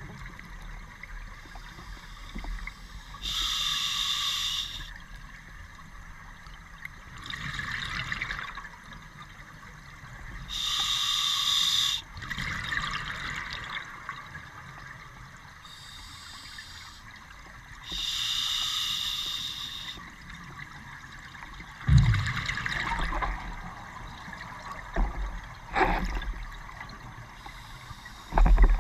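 Scuba diver breathing through an open-circuit regulator underwater: slow breaths about every seven seconds, each exhale a burst of bubbles lasting a second or two, with the quieter hiss of the regulator on the inhale between them. A few sharp knocks of gear come near the end, the loudest about 22 seconds in.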